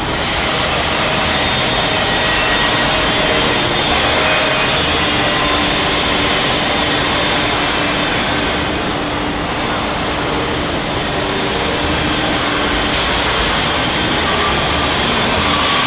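Loud, steady industrial noise of a slaughterhouse processing line: a dense wash of machine rumble and hiss with a few faint humming tones, unchanging throughout.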